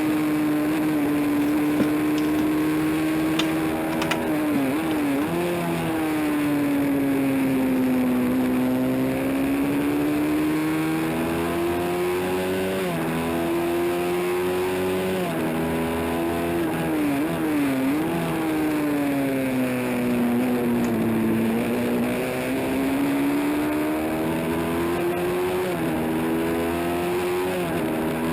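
Honda CB350 race bike's parallel-twin engine running hard, its note sinking and rising over several seconds at a time. The pitch stutters briefly about five and seventeen seconds in, and again near the end.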